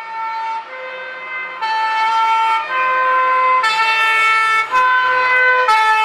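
Two-tone siren of a fire engine, switching between a higher and a lower note about once a second.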